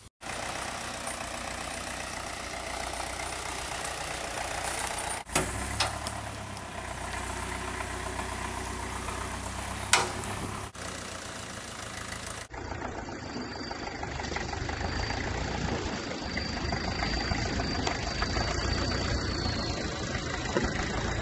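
A vehicle engine idling steadily, heard across several short cut-together clips, with a sharp click or two at the cuts. In the later part a faint high whine holds steady and then drops away near the end.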